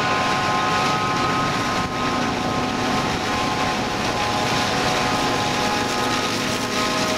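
John Deere 7950 self-propelled forage harvester chopping maize under load: a steady engine drone with a high, even whine over it as the crop is cut and blown through the spout.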